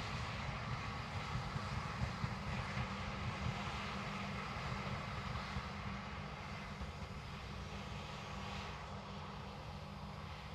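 Locomotive-hauled inspection train running past and moving away: a low rumble of wheels on rail, with a run of clicks over the rail joints in the first few seconds, slowly fading.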